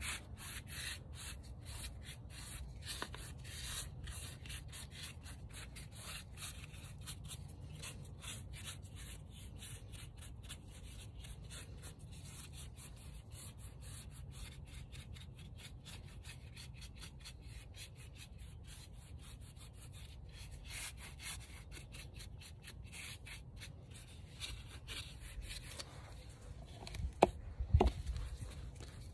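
Paintbrush dry-brushing white paint over textured concrete: a steady run of quick, scratchy brush strokes rubbing on the rough surface. Near the end, two loud knocks.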